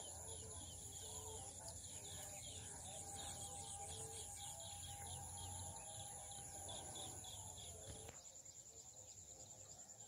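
Faint birds calling and chirping over a steady, high pulsing insect trill. The birds drop out about two seconds before the end, leaving the insect trill.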